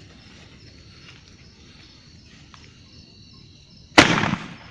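Crickets chirring faintly in the night, then about four seconds in a firework goes off with a sudden loud blast that fades over about half a second.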